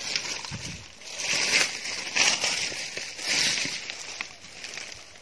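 Dry forest leaf litter crunching and rustling in three loud bursts about a second apart, then fading.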